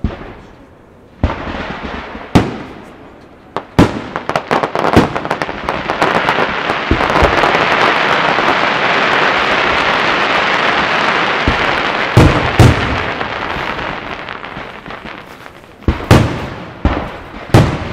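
WECO professional aerial fireworks going off: single sharp bangs in the first few seconds, then a quick run of small cracks. These merge into a long, dense crackling hiss through the middle. Near the end comes a cluster of loud shell reports.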